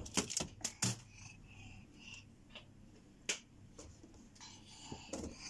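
Scattered light knocks and clicks, with some faint rubbing, as a child handles and straightens the items on the shelves of an open refrigerator.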